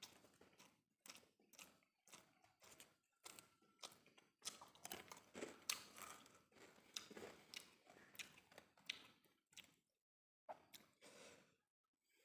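Quiet, close-miked mukbang eating sounds: wet chewing of steamed rice eaten by hand, with soft irregular clicks and rustles of fingers gathering rice on a banana leaf, and a few breaths.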